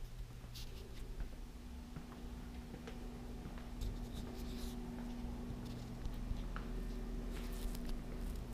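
Handheld camera being carried through rooms: faint scratchy rubbing and scattered light clicks from handling and footsteps, over a steady low electrical hum.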